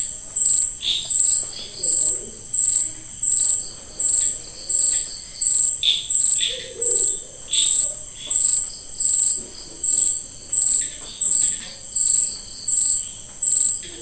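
Insect chirping in a steady, even rhythm of about three high-pitched chirps every two seconds, loud and unbroken. A few short bird chirps come in faintly, about a second in and again around six to eight seconds in.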